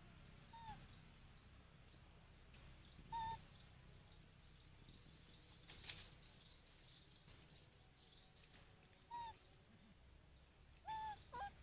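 Faint short, high calls from a small animal, five of them a few seconds apart, with two close together near the end and a quick high chattering run in the middle, over a quiet natural background.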